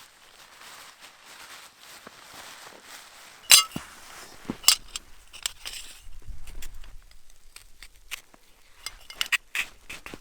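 A soft hiss, broken by a series of sharp clinks and knocks. The loudest comes about three and a half seconds in, with more scattered through the rest.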